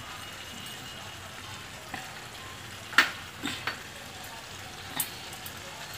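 Kaleji (liver) masala bubbling and sizzling steadily in a pan on the stove as it simmers down, oil separating from the gravy. A few short sharp clicks break through, the loudest about three seconds in.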